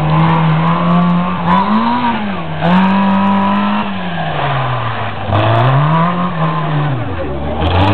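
Small Fiat 600-style rear-engined rally car's engine revving hard around a cone course. Its pitch rises and falls several times as the driver accelerates, lifts and brakes, with a high note held briefly near the middle.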